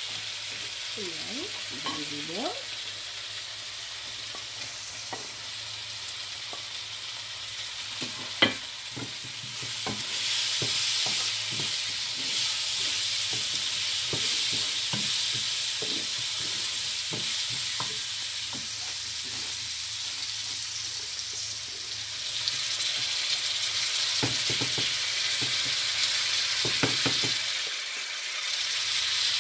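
Food sizzling as it fries in a pan, while a wooden spatula stirs and scrapes against the pan with scattered light knocks. A sharp knock about eight seconds in, and the sizzle grows louder about ten seconds in.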